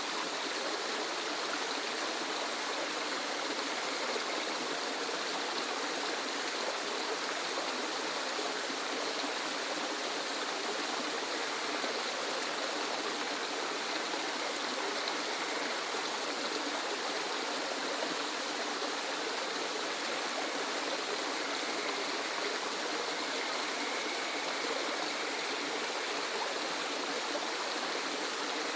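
Waterfall: a steady, even rush of falling water with little deep rumble.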